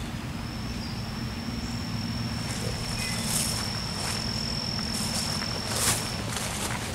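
Footsteps swishing through tall grass, a few brushing strides, while an insect keeps up one steady high-pitched trill that stops about five and a half seconds in, over a low steady rumble.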